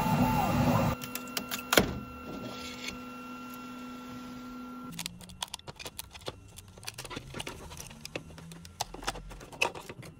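FlashForge Adventurer 5M Pro 3D printer at work: its stepper motors whir with rising and falling pitch, cutting off about a second in and leaving a steady hum with one sharp click. From about halfway the hum drops away and scattered light clicks and taps follow.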